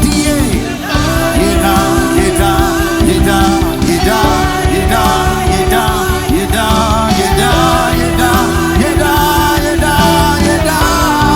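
Music with singing: sustained backing over a steady low end, with several wavering melodic lines.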